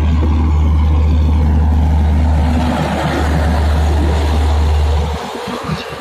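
Passenger train coaches rolling past at speed, a loud steady rumble of wheels on the track. The deep part of the rumble drops away about five seconds in.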